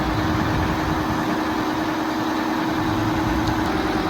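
A large engine idling steadily, a constant drone with an even hum.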